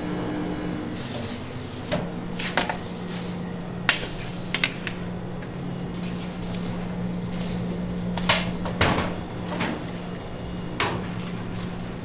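Light knocks and clatter of metal perforated baking trays as baked cruffins are lifted and set down, about eight sharp knocks in all, over a steady low kitchen hum.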